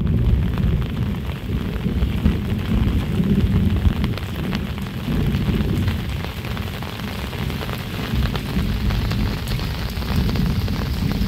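Heavy tropical rain falling steadily, a dense hiss with many fine drop ticks over a deep steady rumble.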